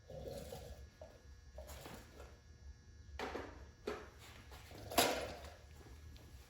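A few scattered knocks, clicks and rustles of handling, the sharpest knock about five seconds in.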